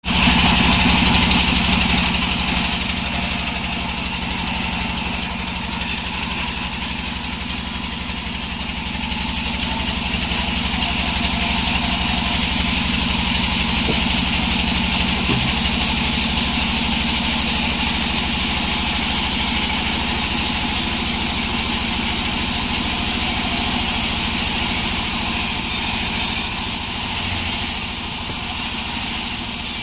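Sawmill engine running steadily, somewhat louder from about ten seconds in.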